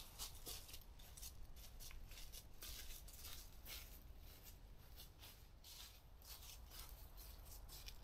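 Faint, irregular scraping and rustling from hands at work setting up camp: a quick run of short strokes, several a second.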